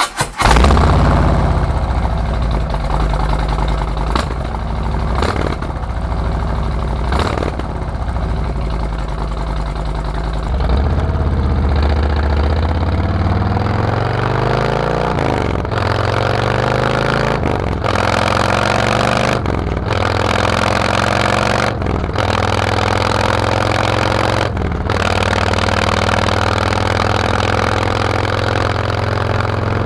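Harley-Davidson Road Glide V-twin starting and running through TAB Performance 50 Cal slip-on mufflers fitted with Zombie Rings with integrated torque cones. It catches suddenly at the start and is revved. Engine speed climbs between about ten and sixteen seconds in, and there are short drops in sound every couple of seconds.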